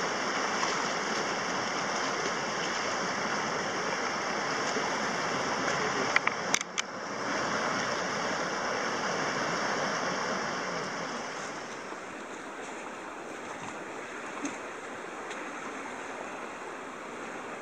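Steady rushing of shallow river rapids, with a few sharp clicks about six seconds in. The water grows somewhat quieter about twelve seconds in.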